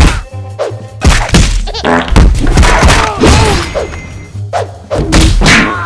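Cartoon fight sound effects: a rapid string of thuds and whacks mixed with pitched, sliding cartoon noises, over music.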